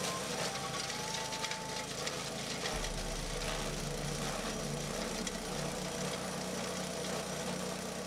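Small fuel engine running a forage chopper (chaff cutter) at steady speed while dry maize stalks and grass are fed in and shredded, with faint crackling from the cutting. The low engine hum grows stronger about three seconds in.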